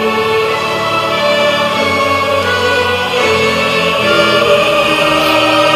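Orchestral music with a choir singing long held chords, the notes changing about once a second.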